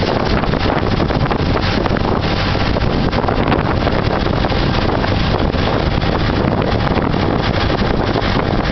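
Heavy wind buffeting the microphone over the steady running of a 1910 Ford Model T's four-cylinder engine as the car drives at a constant speed. The level holds even, with no gear changes or revving.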